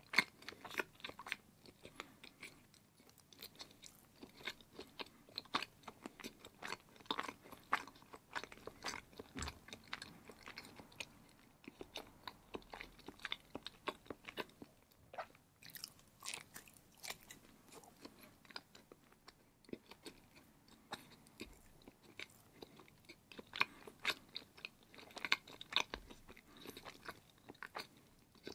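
A person biting and chewing firm block cheese, with a dense, irregular run of short mouth clicks and smacks.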